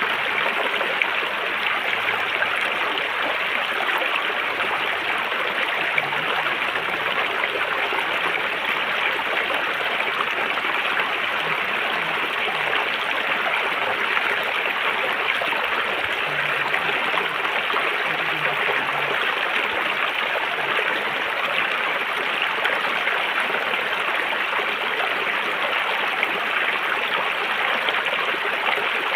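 River water running over rocks: a steady, unbroken rush and babble that holds level throughout.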